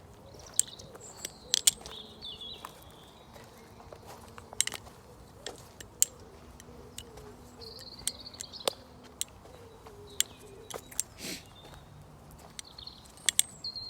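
Balisong (butterfly knife) being flipped: its metal handles clack and tap in sharp, irregularly spaced clicks, a few close together. Birds chirp between them.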